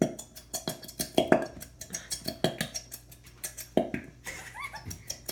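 Irregular sticky clicks and knocks of glitter glue being stirred in a bowl, several a second.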